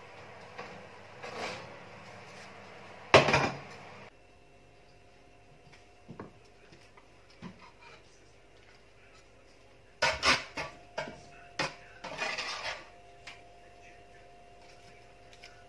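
Metal cookware clattering: a sharp clank about three seconds in as the baking tray is handled at the oven, then a run of clinks and scrapes from about ten to thirteen seconds in as metal tongs and a fork work a whole baked snapper out of the roasting tin onto a serving plate.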